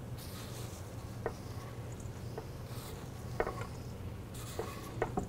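Chopped broccoli florets being swept by hand off a wooden cutting board into a colander for steaming, with a few light taps and knocks over a steady low hum.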